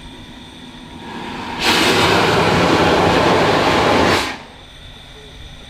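Saxon IV K narrow-gauge steam locomotive standing still and venting steam low down beside its wheels: a loud hiss that swells for about half a second, holds steady for some two and a half seconds, then cuts off sharply.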